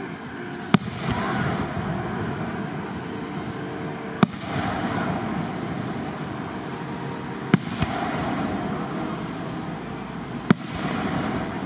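Aerial firework shells bursting: four sharp bangs about three seconds apart, each followed by a few seconds of lingering noise.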